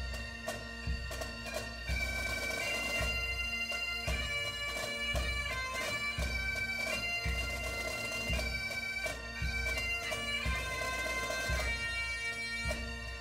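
Bagpipe music: a pipe tune played over the steady drone.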